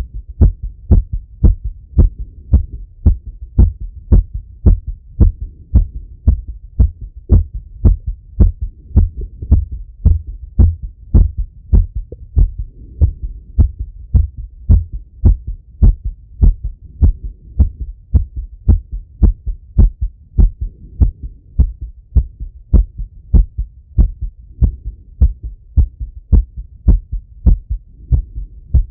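A man's heartbeat heard through a stethoscope on the chest, a steady, even run of low thumps about two a second, the heart still beating fast while recovering after a set of exercise.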